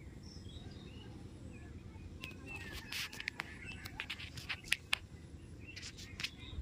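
Small birds chirping with short, quick calls, mixed with scattered sharp clicks that cluster in the middle and near the end, over a steady low rumble.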